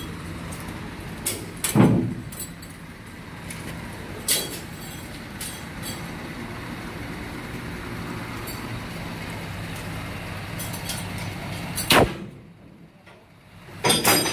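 A steady low mechanical hum broken by a few sharp knocks, the loudest about two seconds in, again about twelve seconds in, and a cluster near the end. The hum drops away for about a second and a half after the knock at twelve seconds.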